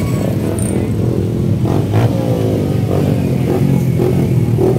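A pack of many motorcycle engines running together at idle, with a steady low hum. About two seconds in, one engine is revved and its pitch falls back.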